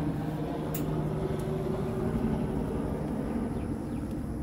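Steady low mechanical hum, even and unchanging, with a couple of faint light clicks about a second in.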